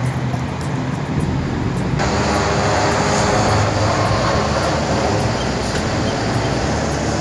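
Street traffic noise: vehicle engines running with a steady rumble, growing louder and hissier about two seconds in as traffic passes close by.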